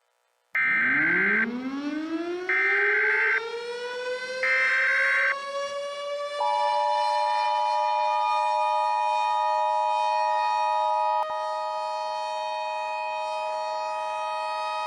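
A civil defense siren winds up from a low pitch to a steady high wail. Over its first five seconds come three short, loud bursts of Emergency Alert System digital header data. About six seconds in, the two-tone EAS attention signal starts and holds steadily over the siren, marking the opening of a tornado warning alert.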